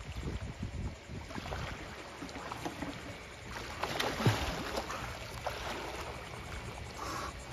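Water sloshing and splashing as dolphins swim and surface at the water's edge, with a low rumble underneath. About four seconds in there is a louder rush of splash as one dolphin breaks the surface.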